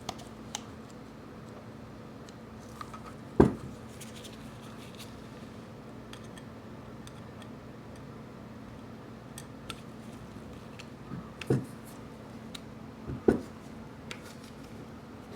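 Small metal clicks and scratches of a grub screw being fitted and turned with a hex key in a small lathe headstock, with three louder knocks of metal parts against the bench.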